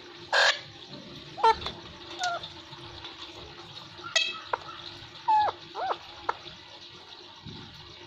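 Alexandrine parakeets calling: one harsh screech near the start, then a scattering of short squawks that bend up and down in pitch, the angry calls of a caged parrot.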